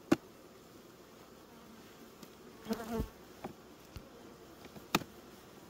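Honey bees buzzing over an opened hive while the frames are worked: two sharp wooden knocks, one right at the start and one near the end, and a scraping sound about halfway through, as a hive tool pries at the frames.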